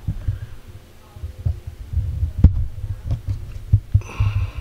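Handling noise from a camera held against the body and being moved: irregular low thuds and fabric rubbing on the microphone, with a sharp click about halfway through.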